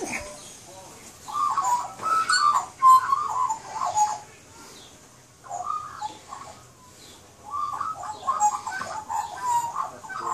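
Australian magpies warbling and carolling in three spells of wavering, burbling song, the longest near the end.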